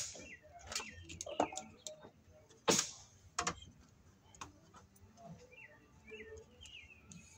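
A few sharp clicks and knocks from hand tools and cable being handled at an electrical box, the loudest a little under three seconds in, with small birds chirping in the background.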